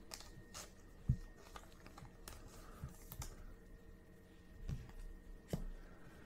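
Baseball trading cards and pack wrappers being handled on a table: faint, scattered clicks and taps of card stock, with a low thump about a second in and a few softer knocks after.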